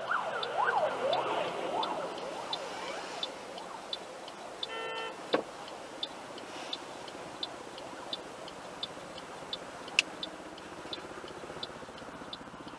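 Fire engine siren wailing, rising and falling in pitch for the first few seconds, then fading away. Behind it the car's turn signal ticks steadily about three times a second, and a short beep comes about five seconds in.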